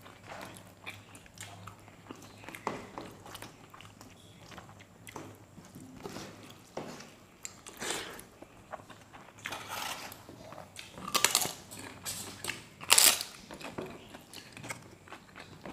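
Close-up eating sounds: fingers working rice on plates, chewing, and crisp crunches of papad being broken and bitten, loudest in the second half.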